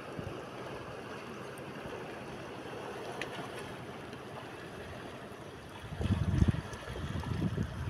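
Steady wash of shallow seawater over an exposed coral reef flat. About six seconds in, wind buffets the microphone with low rumbling gusts for a couple of seconds.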